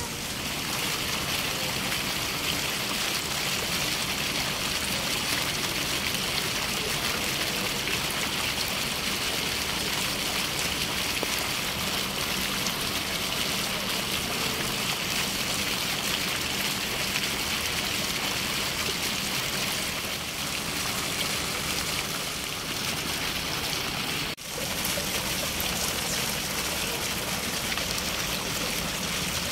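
Fountain water splashing into its basin: a steady rush of falling water, broken once by a brief dip about five seconds before the end.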